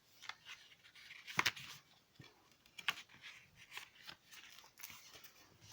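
Pages of a small paper guidebook being leafed through and handled: soft irregular rustling with a few sharper crackles, the loudest about a second and a half in and again about three seconds in.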